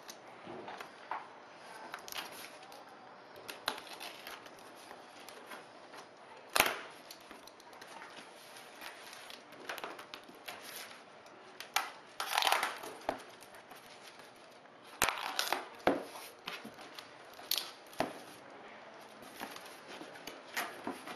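Packing tape on a cardboard box being slit with small scissors and pulled away, with tearing, scraping and handling of the cardboard flaps. Irregular sharp clicks and knocks, the loudest about six and a half seconds in, and a longer tearing stretch about twelve seconds in.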